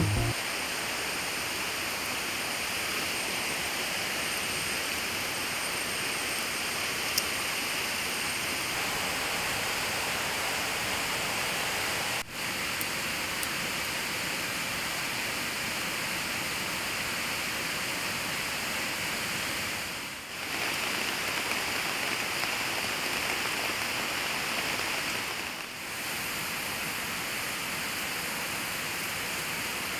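Steady rush of a rocky jungle stream, an even hiss of flowing water that dips briefly three times.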